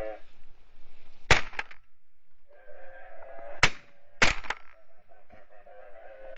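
Shotgun shots at incoming geese: one about a second in, two close together past the middle, and another at the very end, each of the first and third followed by a smaller crack. Geese honk repeatedly between the shots.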